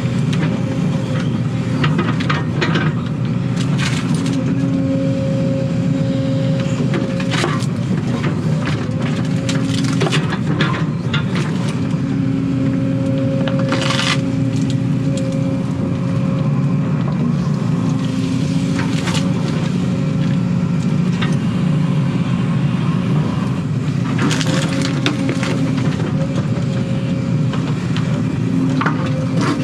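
Case excavator's diesel engine running steadily under load, heard from inside the cab, with a hydraulic whine that rises in and drops out several times as the boom and bucket are worked. Now and then there are sharp cracks and crunches as the bucket and thumb tear a tree stump and its roots out of the dirt.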